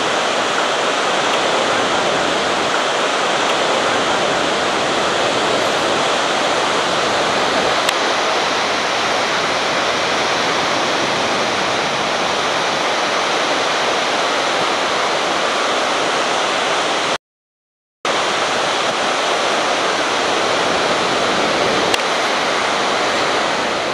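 River rapids rushing, a steady loud noise. The sound cuts out completely for under a second about seventeen seconds in, then returns unchanged.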